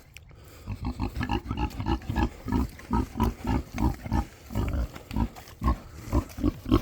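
Pigs grunting in a quick string of short grunts, several a second, starting about half a second in.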